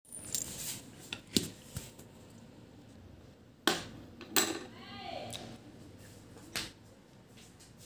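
Handling noise: a series of sharp clicks and knocks of objects being moved, the loudest two close together near the middle, with a brief falling voice-like sound just after them.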